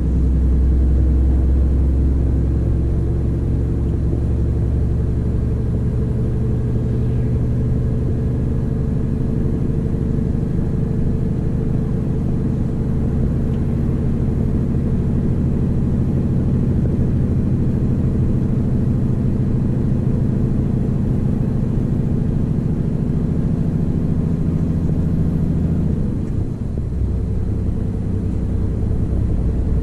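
Scania R500 truck's 13-litre six-cylinder diesel heard from inside the cab, pulling steadily under a 25-ton load with a low, even drone. Near the end the sound dips briefly and the engine note changes pitch.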